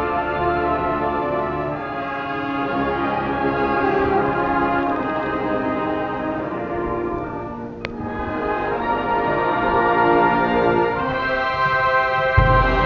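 High school marching band playing slow, held brass chords. A deep low hit comes near the end.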